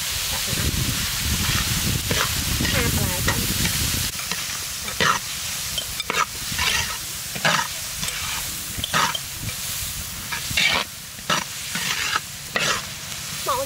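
Diced vegetables sizzling in a large metal wok while a metal ladle stirs them. From about four seconds in, the ladle scrapes against the pan in repeated strokes, a little more than one a second.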